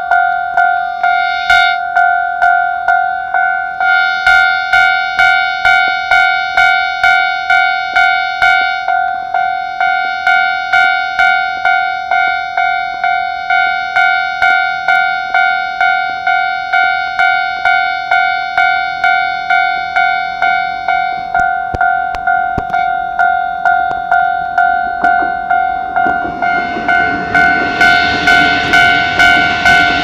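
Japanese railway level-crossing warning bell ringing steadily, an electronic two-tone clang about twice a second. Near the end a train's running noise rises under it as the train reaches the crossing.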